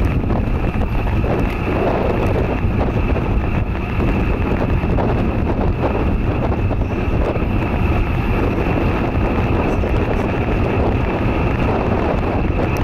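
Steady wind noise rushing and buffeting over an action camera's microphone while riding a road bike at speed.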